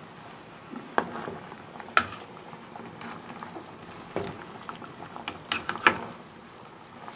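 Metal spoon stirring chunks of sweet potato in an aluminium pot, knocking and scraping against the pot in sharp clinks roughly once a second, with a quick cluster of clinks near the end, over a steady low hiss.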